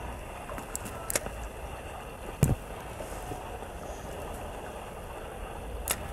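Low wind rumble on the microphone, broken by a few sharp clicks and one louder thump about two and a half seconds in: handling noise from the fishing rod and spinning reel.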